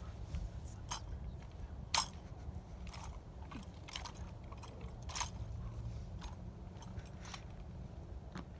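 Drill rifles being slapped, spun and caught by a rifle drill team: sharp slaps and clicks about once a second, the loudest about two seconds in, over a low steady hum.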